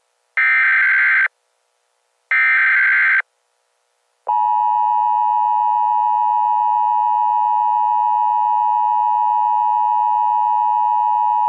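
Emergency Alert System tones: two short bursts of digital data tones, each just under a second long with a brief gap between them. About four seconds in, the steady two-tone EAS attention signal starts and holds unchanged.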